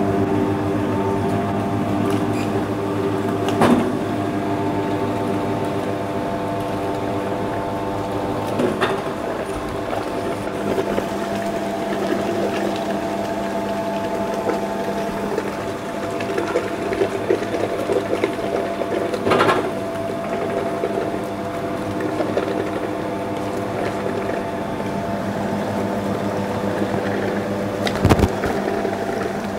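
Electric industrial coconut-milk and fruit press running steadily with a motor hum while it presses freshly grated coconut into coconut milk. A few brief knocks come now and then.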